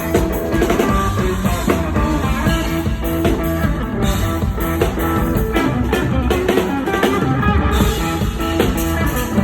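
Live pop-rock band playing, with guitar over a drum kit.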